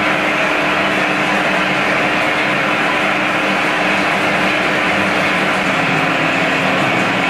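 Rotating stainless-steel drum roasting machine running: a loud, steady mechanical whir and hiss with a faint low hum underneath.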